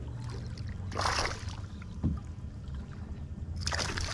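Water splashing at the surface beside a boat, in two short bursts about a second in and near the end, over a steady low rumble.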